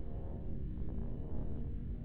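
Experimental electronic noise music: a dense, steady low drone with layered tones and no distinct beats.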